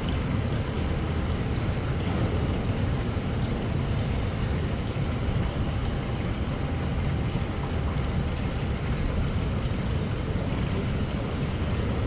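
Strong wind in a rainstorm buffeting the microphone: a steady low rumble with an even hiss over it.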